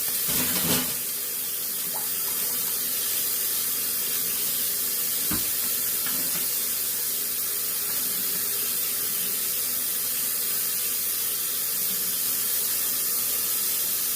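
Kitchen tap running steadily into a sink, with one light knock about five seconds in.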